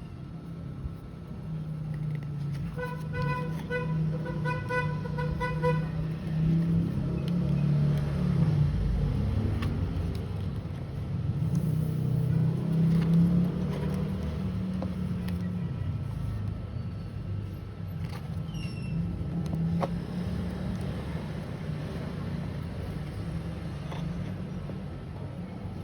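Steady low rumble of road traffic. A few seconds in, a pitched beep repeats rapidly, several times a second, for about three seconds, like a vehicle horn.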